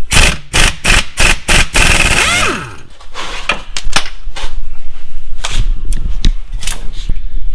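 Sharp metallic knocks in quick succession, about three a second, then a brief scraping squeal that falls in pitch and scattered clanks: hand tools working on a car's front wheel hub.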